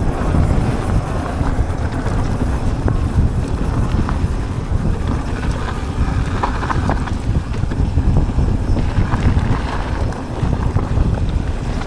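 Wind buffeting the camera microphone over the rolling rumble of a Commencal Meta SX mountain bike's tyres on a dry dirt trail, with a few light rattles and clicks from the bike.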